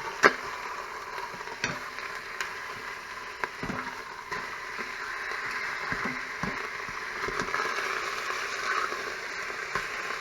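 Pork chops sizzling in oil as they sear in the stainless steel inner pot of an Instant Pot on sauté, a steady hiss. In the first few seconds there are several sharp clicks and knocks as the chops are turned.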